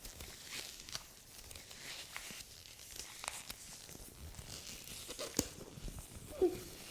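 A woman's hiccup, one short pitched "hic" near the end, over soft rustling and small clicks.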